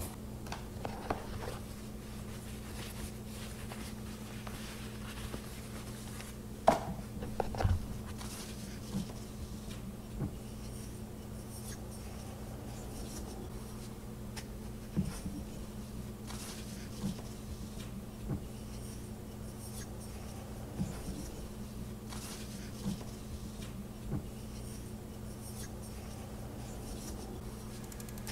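Rustling of tissue-paper wrapping, then a series of light clicks and taps as a Viltrox 85mm f/1.8 camera lens is handled and set down. A couple of louder knocks come about seven seconds in, and a steady low hum runs underneath.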